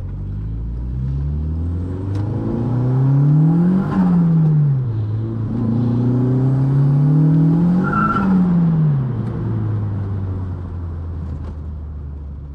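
A turbocharged 1.8-litre 20-valve four-cylinder engine in a Mk2 Golf is accelerating hard twice. Each time the revs climb steadily and then fall back, and a faint high turbo whine rises with them. After the second pull the engine settles to a steady low running note.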